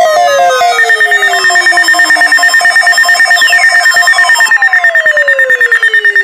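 Electronic alert tones layered together: a steady weather-radio warning alarm tone that stops a little past halfway, a rapid high beeping of about six beeps a second that starts about a second in, and falling electronic sweeps, a new one beginning about halfway through.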